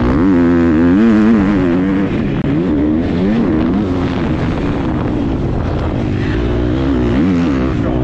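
Motocross bike engine revving hard, pitch climbing and dropping again and again as the rider works the throttle and gears through the track.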